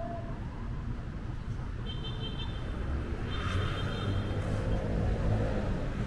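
City street traffic: a steady low rumble of road vehicles that swells about halfway through as something passes, with brief high-pitched tones about two and three and a half seconds in.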